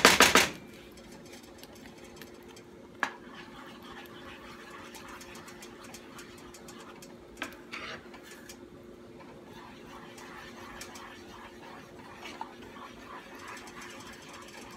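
Wooden spoon stirring thick white gravy in a nonstick skillet. A quick run of scraping strokes stops about half a second in, followed by soft stirring with a few light clicks of the spoon against the pan, over a faint steady hum.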